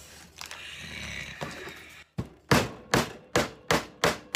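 Hammer tapping a steel cable staple into a pine board to pin down a rope, with soft handling rustle first, then from about halfway a run of about six quick, sharp blows, two to three a second.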